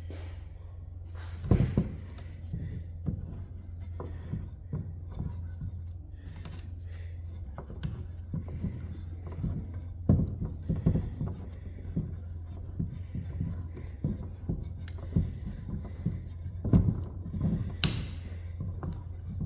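Irregular wooden knocks and thunks from handling and fitting pieces of a panel door, the loudest about 1.5 s, 10 s and 17 s in, over a steady low hum.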